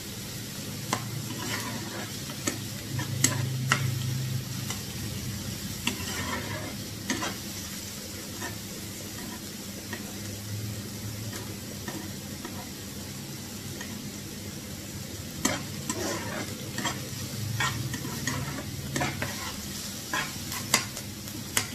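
Onions and whole spices sizzling in hot oil in a pan, stirred with a spatula that scrapes and clicks against the pan now and then.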